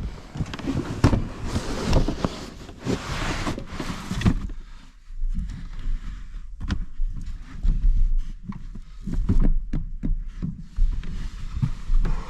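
Rustling, bumps and knocks of someone moving about and handling gear, with a low wind rumble on the microphone through the second half.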